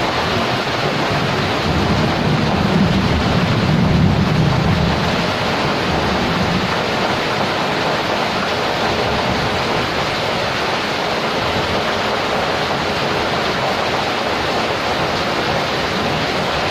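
Steady, loud rushing hiss of a large metal rice steamer pot boiling hard over a wood fire, steam pouring out, with a low rumble in the first few seconds.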